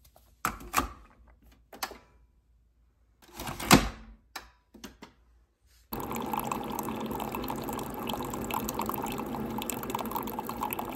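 Single-serve pod coffee maker: a few sharp plastic clicks and one louder clunk as the pod is loaded and the machine is closed, then from about six seconds in a steady stream of freshly brewed coffee running into a ceramic mug.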